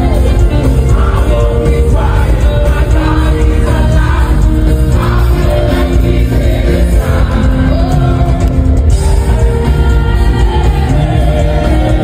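Loud live gospel worship music: sung melody with long held notes over a heavy, steady bass.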